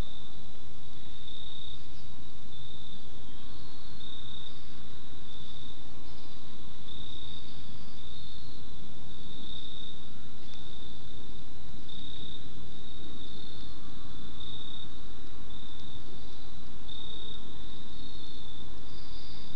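Insects chirping in short high-pitched trills that repeat roughly once a second, now and then joined by a second, slightly higher trill, over a low steady background noise.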